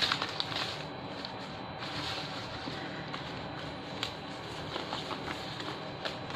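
Banknotes rustling and flicking as they are counted through by hand, with small clicks and light crinkling of a plastic bag.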